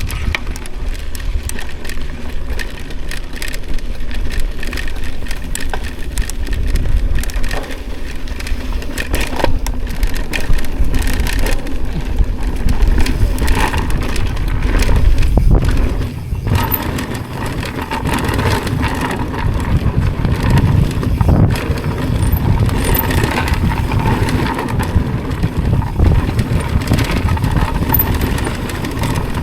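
Mountain bike riding down a rough downhill trail: a steady rumble from the tyres on rough ground, with many small clicks and knocks from the bike rattling over bumps.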